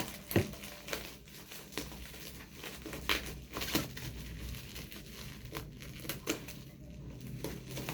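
Packaging crinkling and rustling as a parcel is unwrapped by hand, with scattered sharp crackles, the loudest a little after three seconds in.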